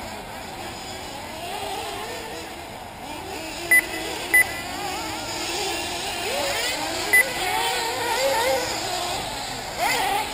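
Small two-stroke nitro engines of 1/8-scale RC buggies, several at once, revving up and down as the cars race. Three short, sharp high beeps cut through, the first two close together and the third a few seconds later.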